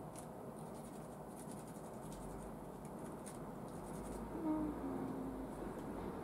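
Faint clicking and scratching as small parts of a model V8 engine kit are handled and fitted by hand. About four seconds in, a short two-note tone that steps down in pitch stands out as the loudest sound.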